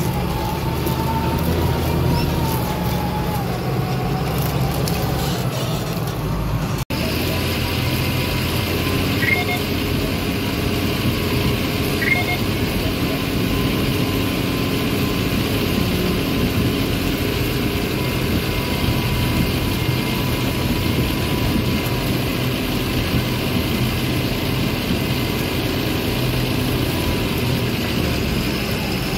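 John Deere 7530 tractor's six-cylinder diesel engine running steadily under load while pulling a reversible plough, with a thin steady whine over the engine. The sound cuts out for an instant about seven seconds in, then carries on unchanged.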